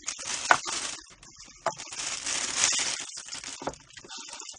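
A thin plastic carrier bag rustling and crinkling as lidded takeout containers are lifted out and set down on a wooden table, with a few sharp knocks as they touch down.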